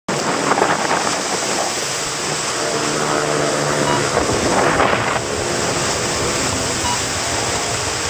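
Wind buffeting the microphone over the steady wash of waves breaking against a rock seawall. An engine hum joins in about two and a half seconds in and fades about five seconds in.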